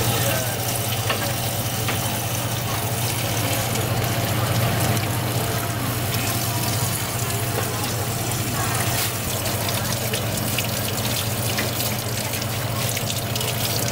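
Tap water running steadily into a stainless-steel sink, with a steady low hum underneath and light splashing later on as hands are rinsed under the stream.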